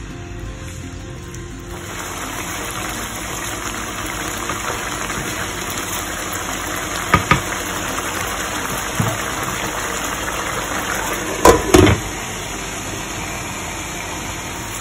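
Chicken pieces in a yogurt-and-spice masala bubbling and sizzling in a frying pan over full heat, the sizzle swelling about two seconds in and then holding steady. A few sharp knocks against the pan, the loudest pair near the end.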